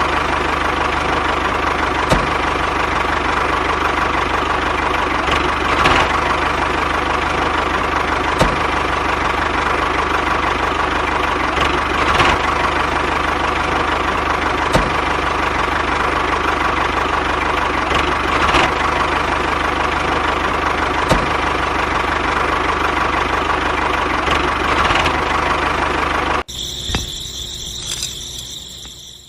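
Steady engine-like drone of a mini DIY toy tractor running, with a faint click every couple of seconds. Near the end it cuts abruptly to a quieter sound with a high whine, then stops.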